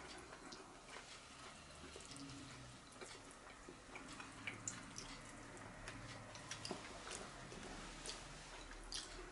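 Quiet eating sounds: a metal fork giving faint, irregular clicks and scrapes against a plate as chicken is picked apart.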